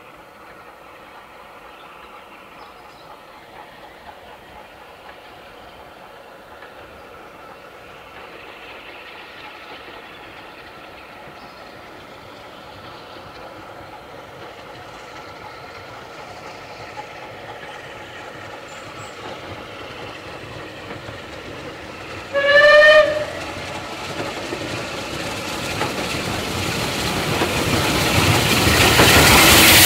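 SR Unrebuilt Battle of Britain steam locomotive No. 34070 'Manston', a Bulleid three-cylinder Light Pacific, approaching under steam and growing steadily louder until it passes close beneath near the end. It gives one short whistle blast about three quarters of the way through.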